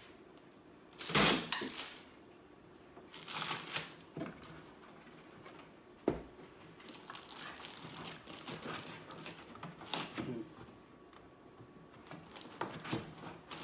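Packing material and tape being handled and pulled out of a boxed desktop 3D printer: rustling and crinkling in bursts, with a sharp knock about six seconds in and smaller bumps and rustles after it.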